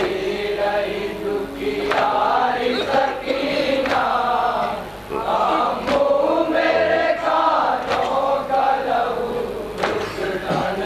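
A group of men chanting a Shia noha (lament) in unison, with rhythmic chest-beating (matam) by hand, about one strike every two seconds.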